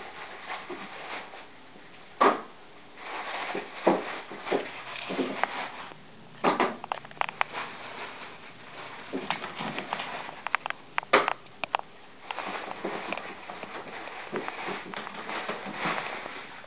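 Irregular knocks and clatter over a rustling background, the sharpest knocks about two seconds in and again about eleven seconds in.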